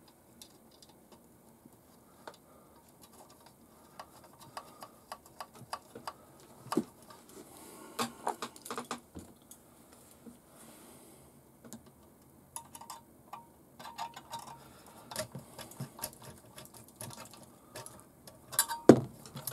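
Scattered light clicks and taps of small metal parts and a hand tool as a shock absorber, spacer and nut are fitted to an RC crawler's chassis, with a sharper knock near the end.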